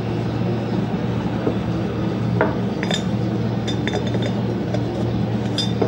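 Light metallic clicks and clinks of a new steel piston ring being handled and pushed into a motorcycle cylinder bore to check its end gap: several sharp clicks with a short ring, spread through the second half. Under them runs a steady low hum.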